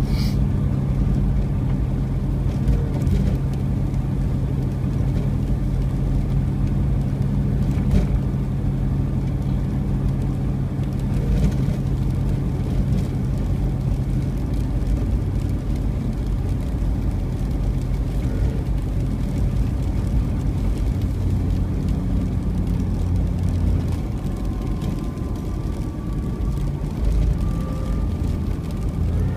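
A car driving: a steady low engine and road hum, with a few sharp clicks. The hum shifts about three-quarters of the way through.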